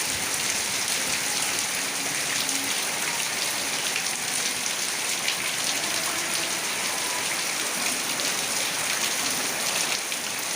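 Heavy rain falling steadily: a dense, even hiss made up of countless individual drop impacts.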